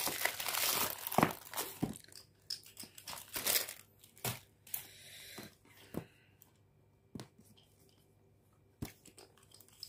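A black plastic mailer bag crinkles and rustles as a cardboard box is pulled out of it. Then come a few sharp taps and knocks as the box is handled and set down on a tile floor, growing sparser and quieter in the second half.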